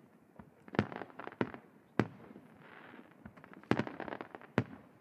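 Aerial firework shells bursting one after another: about eight sharp bangs with short echoing tails, irregularly spaced, the loudest about a second in, two seconds in, and twice near the end.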